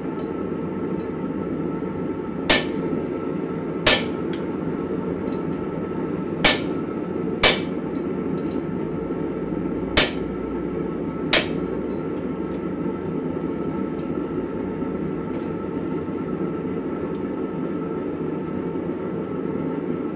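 Hand hammer striking a red-hot coil-spring steel bar on an anvil while forging a chisel: six sharp blows with a bright ring, spaced one to two and a half seconds apart in the first half, then none. A steady low rushing noise runs underneath.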